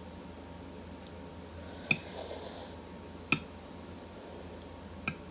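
Eating utensil clinking against a dish three times, each a sharp ringing tap, with a short soft scraping noise around the first one.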